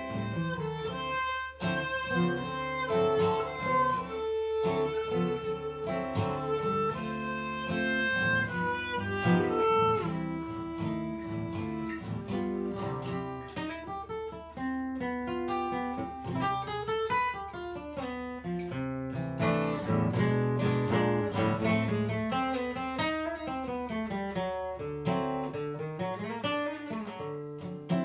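Instrumental acoustic jazz standard: a plucked acoustic guitar accompanies a bowed string melody.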